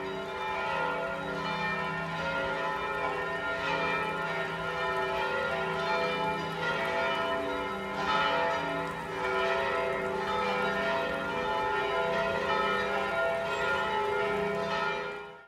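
Church bells ringing in a continuous peal, several bells' tones overlapping and struck again and again.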